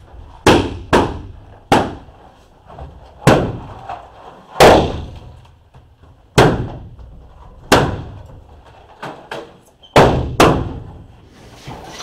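Latex balloons being burst one after another: about a dozen sharp pops at irregular intervals, each followed by a short room echo.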